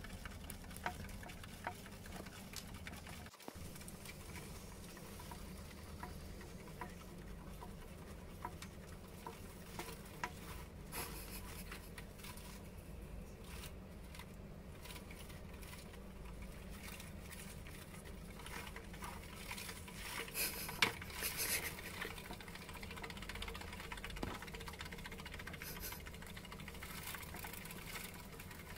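Small pattering and light clicking of hamster feet on a plastic exercise wheel, over a faint steady hum, with a livelier patch of clicks about twenty seconds in.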